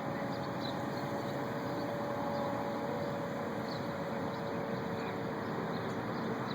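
Unexplained distant outdoor drone: a steady rushing hum with a couple of held tones. Scattered short bird chirps sound over it.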